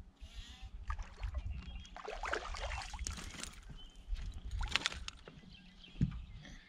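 Hooked largemouth bass splashing at the water's surface as it is reeled to the boat and lifted out, with a single knock about six seconds in.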